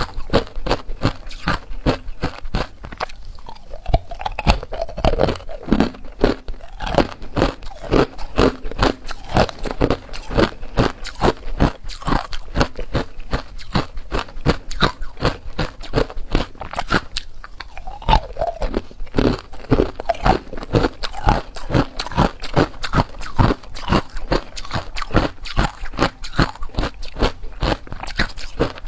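Hard ice cubes crunched and chewed between the teeth, close to a clip-on microphone: a continuous run of rapid, sharp crunches.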